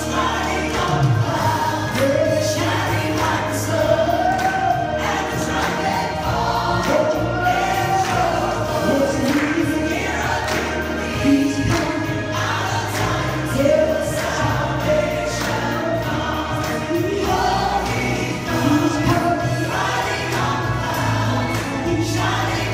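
Group of singers performing an upbeat gospel worship song, a woman's voice leading, over an instrumental accompaniment with a steady bass line.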